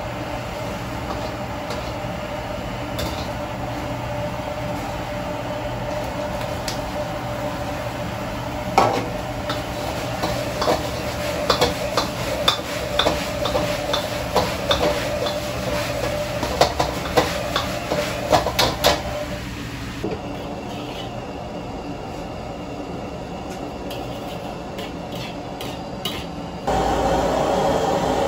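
Gas wok burner running at high flame with a steady rush, while a metal ladle clinks and scrapes against the wok as meat is stir-fried; the ladle strikes come quickly from about nine to nineteen seconds in. Near the end the steady sound jumps louder.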